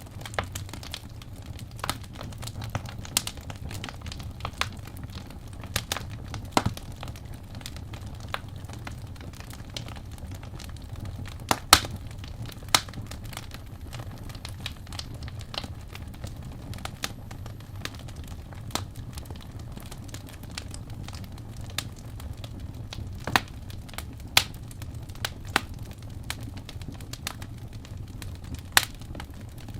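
Wood fire burning in a fireplace, a steady low rumble with irregular crackles and a few louder pops.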